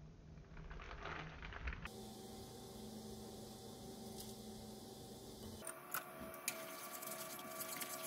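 Faint kitchen sounds: a steady low hum with light clicks and taps of a measuring spoon and chopsticks against a wok of boiling water, including one sharper tap about six seconds in.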